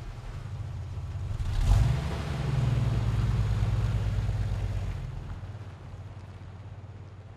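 Car engine idling with an even, pulsing rumble, then revving hard with a sharp burst about two seconds in and pulling away. The sound fades as the car drives off.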